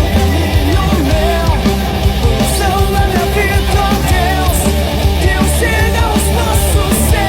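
Rock music with singing, electric guitar and a drum kit, a crash cymbal struck several times in the second half.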